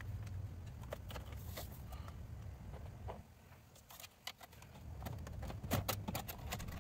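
Faint scattered clicks and taps of hands working metal hose clamps and handling the plastic upper air intake pipe in an engine bay, over a low background rumble that fades about three seconds in.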